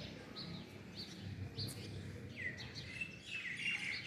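Birds chirping: a series of short high chirps, growing busier with a quick run of calls in the second half, over a low steady background rumble.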